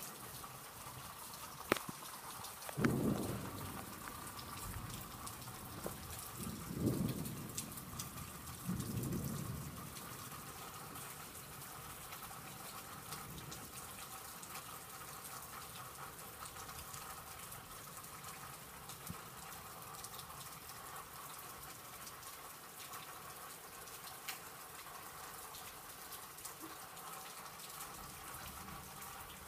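Steady rain during a severe thunderstorm, with thunder rumbling in three short bursts in the first ten seconds, then only the rain.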